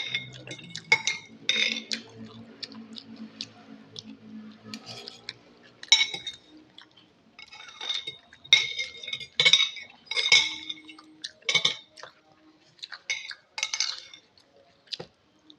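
Cutlery clinking against a bowl while eating soupy instant noodles: a dozen or so short, irregular clinks, each with a brief ring.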